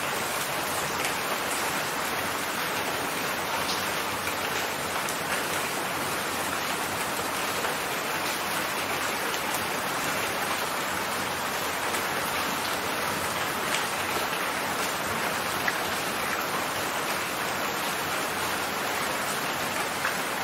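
Steady rain falling, an even hiss with an occasional sharper drop tap.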